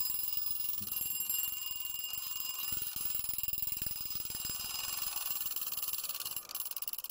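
Chinese wind-up twin-bell alarm clock ringing its alarm, the hammer striking the bells in a rapid, continuous metallic ring. It is being tested after cleaning and repair.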